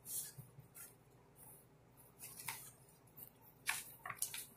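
Faint paper rustling as a printed magazine reprint is handled and shifted, in several short, scattered rustles.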